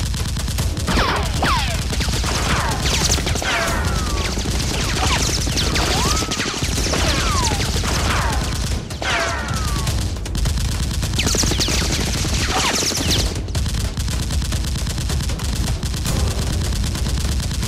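Automatic gunfire sound effects dubbed over toy-blaster fire: a continuous rapid fusillade, with many falling whistles through the first two-thirds.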